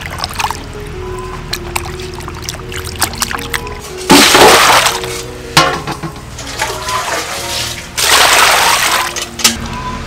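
Water splashing and sloshing in a metal basin as fish are rubbed and rinsed by hand, with two loud rushes of water about four and eight seconds in. Background music plays throughout.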